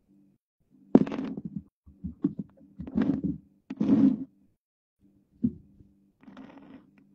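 A few soft thumps and rustles of handling and movement, separate bursts about a second apart, over a low steady hum.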